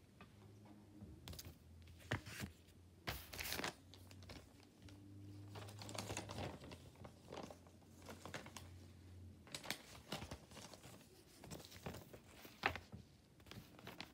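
Sheets of lined notebook paper being handled and shuffled: irregular rustles and crinkles with a few sharper clicks.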